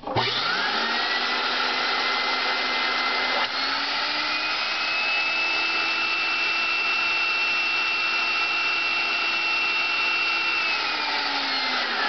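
Ametek-Lamb central vacuum motor switched on, spinning up within a second to a steady high whine. About three and a half seconds in, the pitch steps up and holds as the inlet is sealed off with a vacuum gauge for a sealed-vacuum test, which reads 115 inches, a little above factory spec. Near the end it is switched off and the whine falls away as it winds down.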